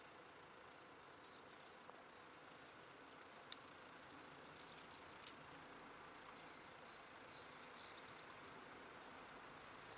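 Near silence: faint outdoor background hiss with a few soft high chirps, a sharp click about three and a half seconds in, and a short trill of five quick chirps near the end.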